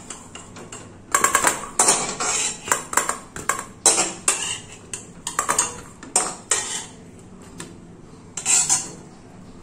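Metal spatula scraping and clinking against a metal kadai as it scoops out syrup-soaked nikuti sweets. About a dozen short scrapes come in quick succession, then it goes quiet for about a second before one more scrape near the end.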